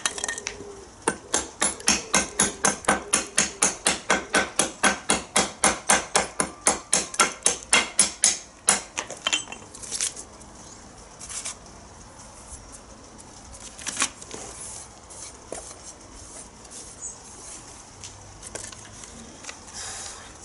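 Carbon-steel knife blade chopping repeatedly into a wooden batten, an edge-retention test: quick, evenly spaced strokes about four a second for some eight seconds, getting louder, then a few scattered knocks.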